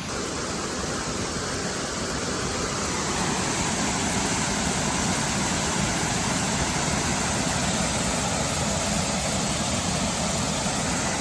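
Steady rushing of a small waterfall, Dutchman Falls, water falling and splashing, slightly louder after about three seconds.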